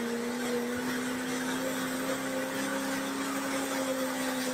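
Stock Chevrolet Silverado diesel pickup under full throttle pulling a sled, its engine a steady drone whose pitch creeps slightly higher.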